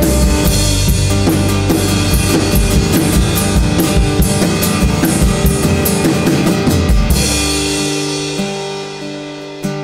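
Live worship band playing an instrumental passage: drum kit with bass drum, snare and cymbals over bass and acoustic guitar. About seven seconds in the drums stop and a held chord rings and fades, with a single strum near the end.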